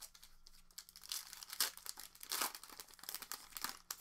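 Foil wrapper of a trading-card pack being torn open and crinkled by hand. It comes in a run of crinkling bursts from about a second in, loudest about a second and a half and two and a half seconds in.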